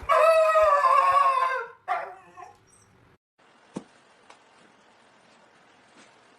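A dog howling: a long, loud, held note that sags in pitch and breaks off about two seconds in, followed by a short second cry. After that it is quiet except for a single sharp click.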